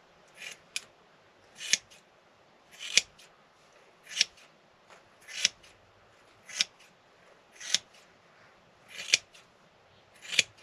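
Heavy-duty Fiskars craft scissors cutting through a latex foam mattress: about nine regular cuts, roughly one every second and a quarter, each building to a sharp snip.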